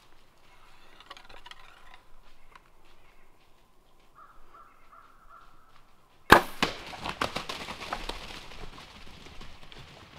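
Crows cawing, then about six seconds in a sudden loud crack of a bow shot at a deer, followed by a long run of crackling and rustling as deer run off through dry leaves.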